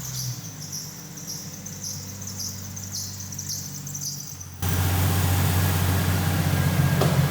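An engine idling with insects chirping over it. About four and a half seconds in, the sound suddenly steps up to a louder engine idle with a steady rushing whoosh on top.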